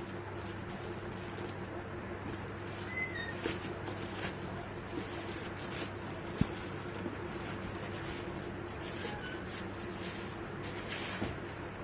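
Plastic courier mailer bag being snipped with scissors and torn open by hand, with scattered crinkling and rustling and a single sharp tap about six seconds in.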